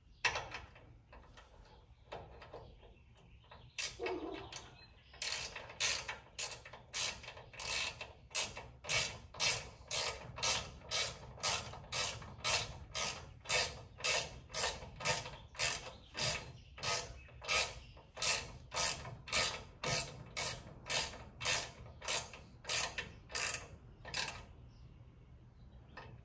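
Hand ratchet clicking in quick repeated strokes, about two a second, as it runs the 3/8 Allen-head caliper guide pin bolts in snug on a GM G-body front disc brake. The strokes start a few seconds in and stop shortly before the end.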